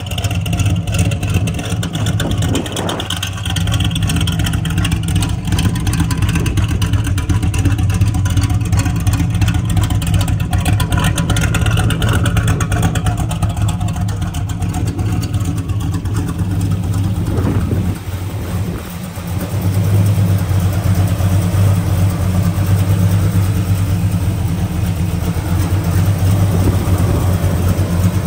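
Small-block Chevrolet 350 V8 idling steadily. It goes briefly quieter about eighteen seconds in.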